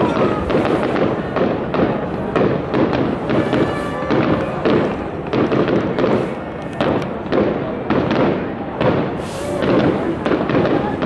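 Fireworks display: aerial shells bursting in quick succession, a continuous run of bangs and crackles several times a second.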